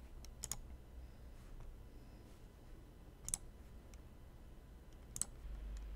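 Faint computer mouse clicks over a low steady hum: a couple about half a second in, then single clicks about three and five seconds in.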